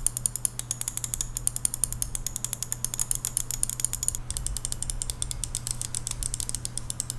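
Rapid, even clicking of an Asus ROG Chakram gaming mouse's buttons with its stock Omron blue switches. A little after four seconds in, the clicks change as the mouse is clicked with its swapped-in Omron grey switches instead.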